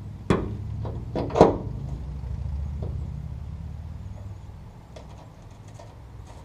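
A few sharp knocks of a hand tool working a bolt on the underside of a 1965 Ford Mustang, the loudest about a second and a half in, with a few faint clicks near the end. A low steady rumble runs underneath.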